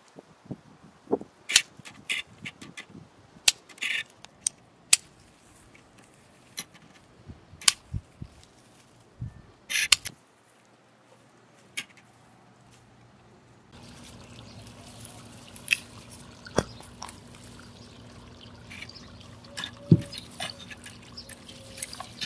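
Scattered sharp snaps and clicks of plant stems being broken off by hand, with rustling leaves, as curry leaves and vegetables are picked. From about two-thirds of the way in, a faint steady hum sits beneath a few more snaps.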